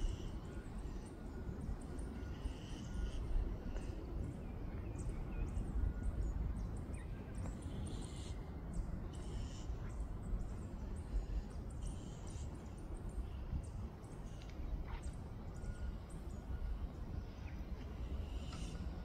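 Open-air ambience: an uneven low rumble like wind on the microphone, with birds calling a few times.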